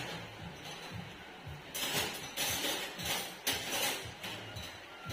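Background music with a steady beat. From about two seconds in, short bright rattling bursts sit over it.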